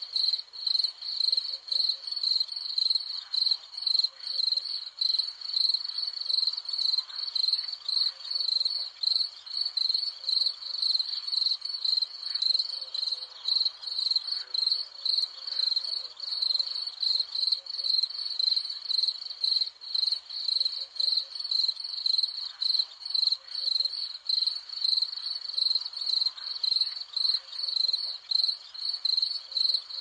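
Crickets chirping steadily: a high ringing chirp repeating evenly a few times a second, without a break.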